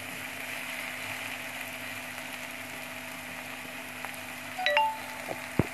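Chopped onions sizzling steadily in hot oil in a pan as they are lightly fried and stirred with a spoon. A few short, sharper sounds come near the end.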